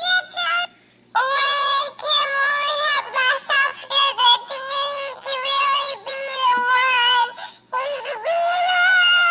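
Very high-pitched singing voice, sung in wavering phrases with brief pauses, ending on a long held note.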